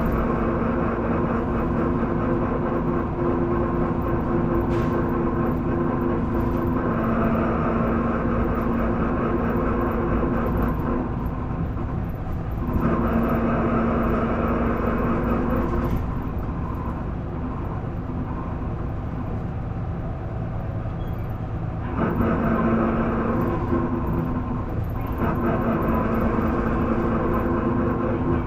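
Isuzu Erga city bus's diesel engine heard from inside the cabin, pulling under load with a steady drone and tones that fade and return several times as the driver shifts and eases on and off the throttle. This bus is known for an abnormal running noise.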